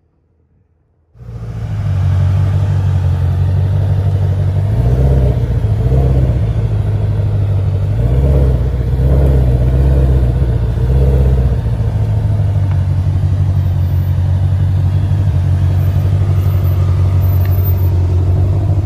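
Tuned 2020 Shelby GT500's V8 idling through its modified X-pipe exhaust, a deep steady rumble that cuts in about a second in. It swells with several short throttle blips between about five and eleven seconds in.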